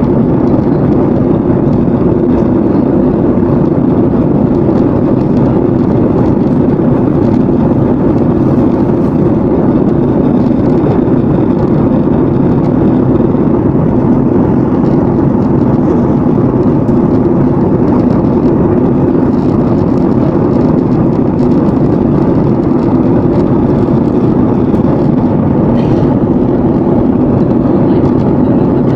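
Steady drone of a Boeing 737-800 airliner, its CFM56 jet engines and airflow heard inside the cabin, holding an even level throughout with no change in pitch.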